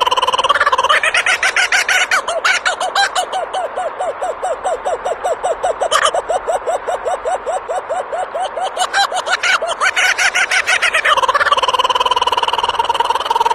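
A bird calling: a held, even tone, then a long run of rapid repeated notes at about five a second for most of the stretch, returning to the held tone near the end.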